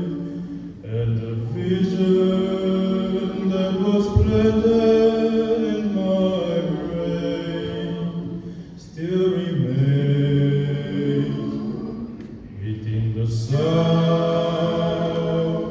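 A mixed group of men's and women's voices singing a cappella in harmony through microphones, holding long sustained chords. The singing is in long phrases with brief breaks between them, about a second in, near the middle and again shortly before the end.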